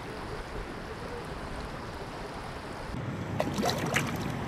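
Steady wind and river-water noise on the microphone. After a cut about three seconds in, a few close splashes and drips in the water at the surface.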